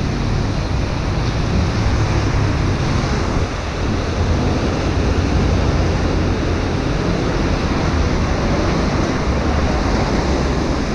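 Steady rush of rain and wind buffeting the camera's microphone, with a heavy low rumble underneath.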